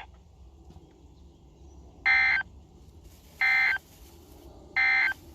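Three short bursts of Emergency Alert System (SAME) digital data tones over weather radio, about 1.4 seconds apart, with faint radio hiss between them: the end-of-message code that closes an alert.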